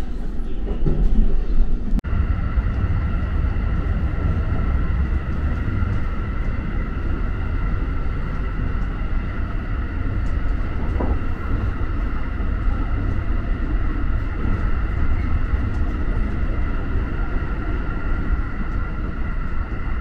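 Type 223 electric train running at a steady speed, heard from inside near the conductor's cab: a steady low rumble with a steady high whine that holds one pitch.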